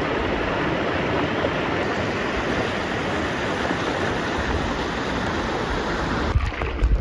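Steady rushing of water from a waterfall and its fast-flowing pool. Near the end the rush drops back and a few low thumps are heard.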